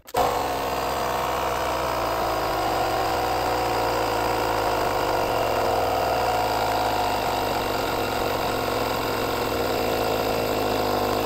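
Battery-powered AdoreTrip 150 PSI portable air compressor kicking on and running steadily, inflating a completely flat race tire through its hose.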